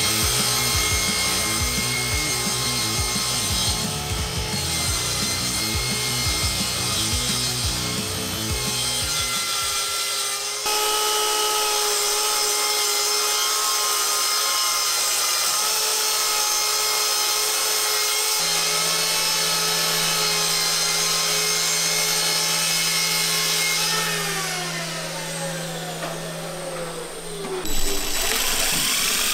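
Festool plunge track saw running as it cuts through plywood along its guide rail; near the end its whine falls in pitch as the blade spins down. A cordless drill/driver runs briefly at the very end.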